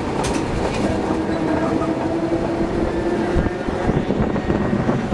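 Perley Thomas streetcar on the St. Charles line running along its rails, heard from on board by the open window. There is a dense rumble and rattle of wheels on track, with a steady hum that stops about three and a half seconds in.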